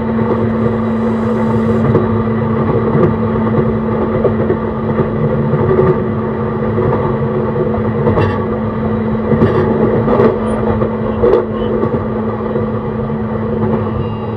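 E131 series electric multiple unit running at steady speed, heard from on board: continuous rumble of wheels on rail with a steady motor hum. A few sharp knocks from the track come a little past halfway.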